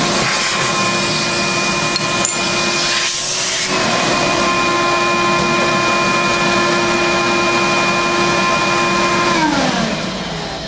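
A Bridgeport milling machine's face mill takes a 5-thousandths resurfacing cut across a cast-iron brake rotor on a rotary table, with a shop vacuum running to pick up the chips. It makes a loud, steady rushing noise with a ringing whine, which breaks off briefly about three and a half seconds in. Near the end the whine falls in pitch as a motor winds down and the noise drops.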